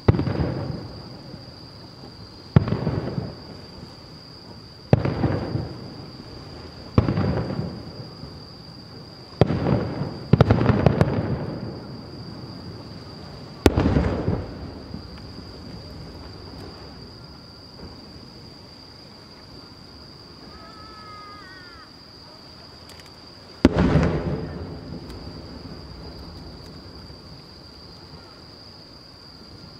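Aerial firework shells bursting: about eight sharp booms, each trailing off in a rolling echo, mostly in quick succession in the first half, then after a long lull one more.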